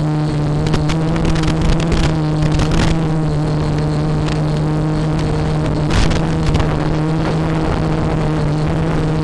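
FPV quadcopter's onboard audio: a steady buzzing hum at an unchanging pitch, from the motors at a steady throttle, with scattered crackles, a louder burst about six seconds in.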